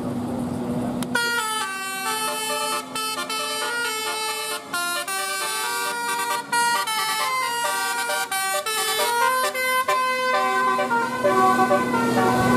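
Multi-tone 'telolet' bus horn playing a quick melody of short notes that step up and down, starting about a second in and stopping near ten seconds, over the steady hum of a bus engine.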